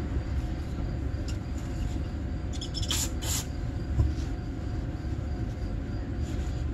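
Small parts handled on a workbench: a few light clicks about three seconds in and a dull knock about a second later, over a steady low hum.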